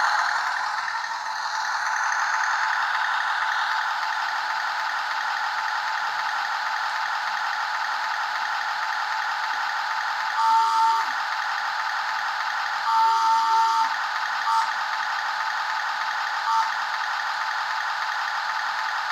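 Toy RC Tiger tank's built-in sound unit playing a steady, thin engine-running effect through its tiny speaker, with no bass. Twice an extra whir of about a second is laid over it as the turret traverses, followed by a couple of short blips.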